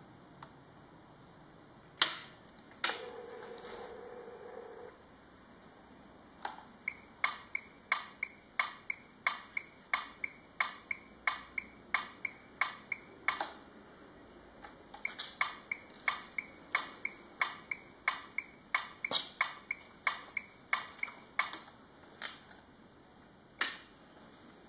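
Turn-signal click unit on a Honda CT125 clicking evenly in time with the flashing LED indicators, fitted so the signals make an audible tick. Two sharper clicks and a short hum come first; the steady clicking starts about a quarter of the way in, pauses briefly near the middle, then runs on.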